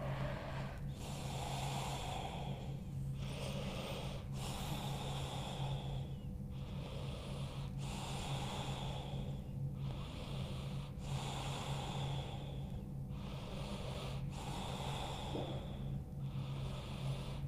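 A woman breathing slowly and deeply while holding a deep forward-fold stretch, each inhale and exhale lasting a second or two in an even rhythm. A steady low hum runs underneath.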